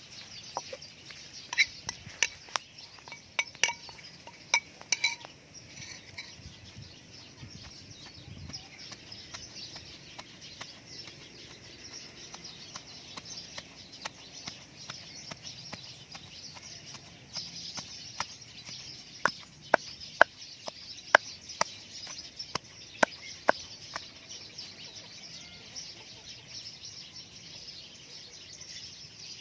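Wooden pestle pounding fish paste and greens in a stone mortar: irregular sharp knocks, loudest in two spells, a couple of seconds in and again about two-thirds of the way through, over a steady high hiss.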